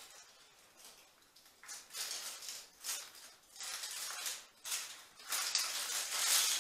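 Leaves of a leafy garland rustling as it is handled, in short irregular bursts that come closer together near the end.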